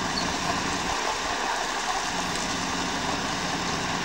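Heavy diesel vehicle engines running steadily: a mobile crane and a lorry moving slowly alongside it.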